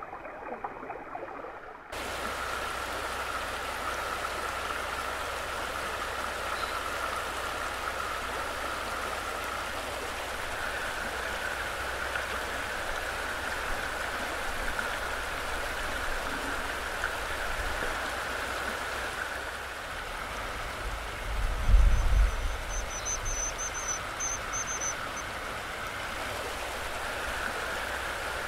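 Shallow, rocky woodland river rushing steadily over stones, heard from the water's edge. It follows a duller, muffled underwater stretch that ends about two seconds in. Two-thirds of the way through there is a brief low thump, followed by a short high-pitched twittering.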